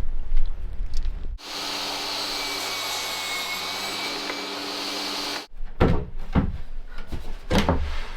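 An electric machine runs at a steady pitch with a faint whine for about four seconds, starting and stopping abruptly. Several knocks follow.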